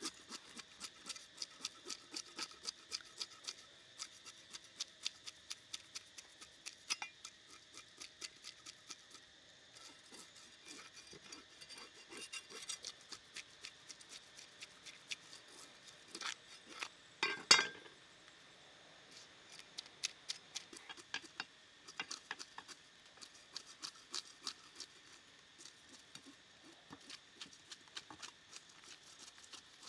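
A cleaver scraping the scales off a large river fish on a wooden chopping block: quick, rhythmic rasping strokes, about three or four a second, with short pauses between runs. One louder knock a little past halfway.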